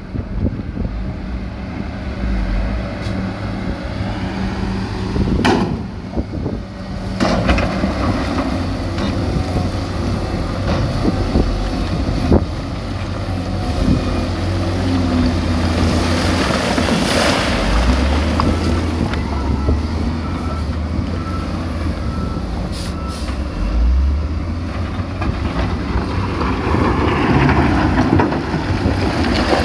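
Heavy diesel machinery (dump trucks and a wheel loader) running steadily with a low engine hum, with a brief hiss about halfway through.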